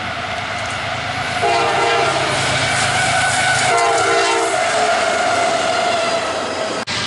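Diesel freight locomotive sounding its multi-note air horn as it approaches and passes: two long blasts and a brief third. Under the horn, the engine rumbles and the wheels of a double-stack container train click over the rails.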